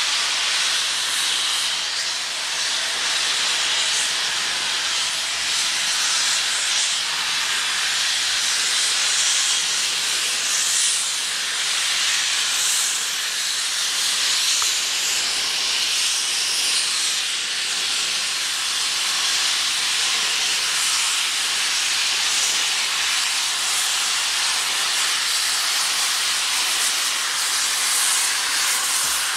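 LMS Stanier Black Five 4-6-0 No. 5025 letting off a loud, steady hiss of escaping steam, with no exhaust beats.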